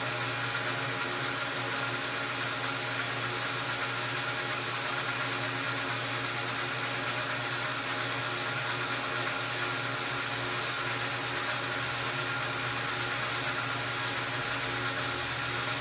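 Metal lathe running steadily under power feed during a very light finish pass facing a piston. There is a constant motor hum with a steady whine above it, and no change in speed or load.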